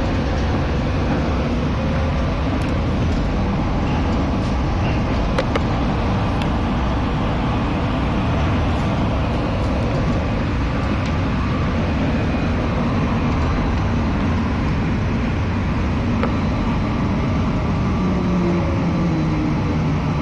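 Cabin noise of the Phoenix Sky Harbor SkyTrain, a rubber-tyred automated people mover, running along its elevated guideway: a steady rumble and hiss, with a low whine falling in pitch near the end.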